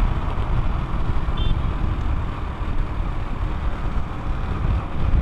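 Motorcycle running at road speed, its engine under a dense low rumble of wind on the microphone. A short high-pitched beep sounds about a second and a half in.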